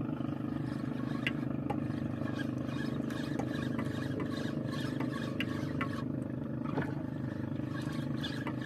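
A boat's engine running at a steady pitch, with a few short faint clicks scattered on top.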